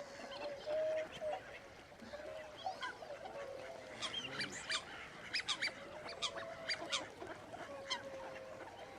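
Birds calling, with a flurry of short sharp calls in the middle over a steady wavering tone.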